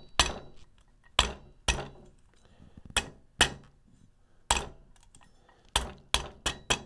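Soft-face hammer tapping a retaining ring into place on a Ford 10R140 transmission's P1 planetary gear set, seating the little clips of its lock ring. About ten sharp taps at an uneven pace, coming quicker near the end.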